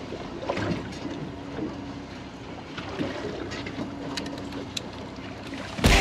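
Boat motor running steadily on the sea, with wind and water noise and a few small knocks. There is one sharp, loud knock just before the end.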